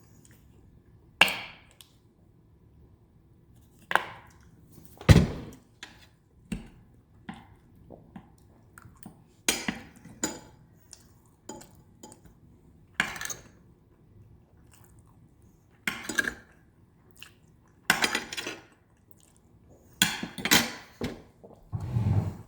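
Cutlery knocking and clinking on dishes during a meal, in sharp irregular clicks and clatters about a second or two apart, with chewing in between.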